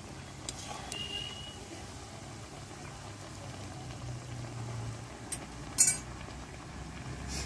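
Chana dal fritters deep-frying in oil, a steady sizzle, with a few light clicks and one sharp click about six seconds in.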